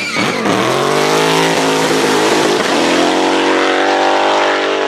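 Race car engine sound effect: the engine revs up in the first second, then holds a loud, steady high note, and cuts off suddenly at the end.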